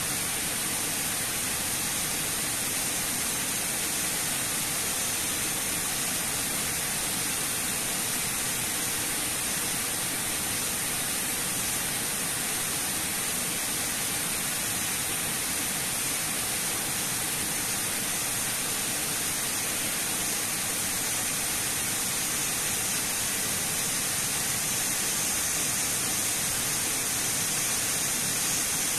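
Water cascading down the face of a concrete dam spillway into the pool below: a steady rush of falling water, a little louder near the end.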